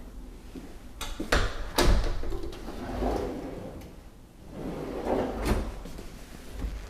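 Pantry cabinetry being opened: a few sharp clicks about a second in, then two sliding, rumbling swells.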